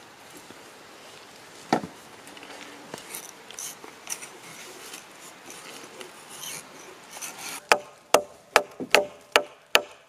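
Light scraping and handling of wood with a single sharp knock early on, then near the end a steady run of sharp blows of a tool striking wood, about two a second.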